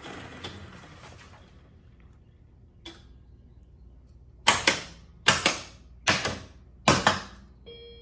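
Bally Fireball Classic pinball machine in its self-test: four loud mechanical clacks about 0.8 s apart, typical of its solenoid coils being fired, followed near the end by a short electronic tone from its sound board.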